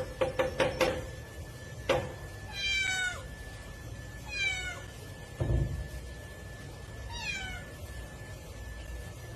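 A domestic cat meowing three times, short meows that fall in pitch at the end, spaced a couple of seconds apart. A rapid pulsing stops about a second in, a sharp click comes just before the first meow, and a dull thump falls between the second and third.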